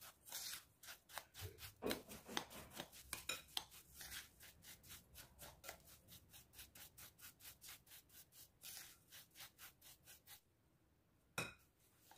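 Metal spoon stirring and scraping a crumbly fine-semolina mixture in a glass bowl: quick, even strokes, about five a second, as the oil is worked into the semolina. The stirring stops about ten seconds in, followed by a single sharp clink a second later.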